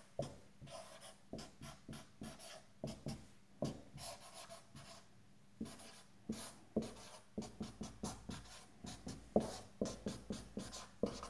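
Dry-erase marker writing on a whiteboard: a string of short, irregular strokes and taps as an equation is written out.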